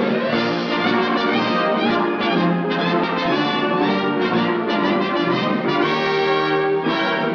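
Orchestral title music from a 1940s Warner Bros. cartoon, with brass prominent, playing continuously.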